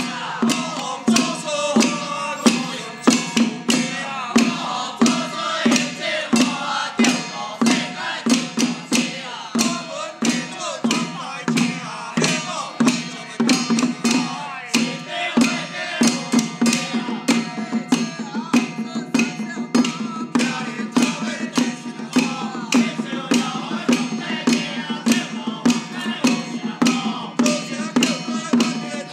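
A group of men chanting in unison while beating small hand-held drums with wooden sticks, a steady beat of about two strokes a second.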